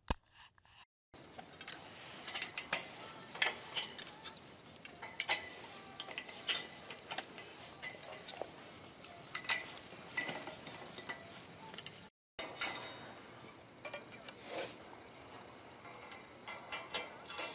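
Steel trampoline springs clinking and rattling against the metal frame as they are hooked into their holders, in irregular sharp clicks.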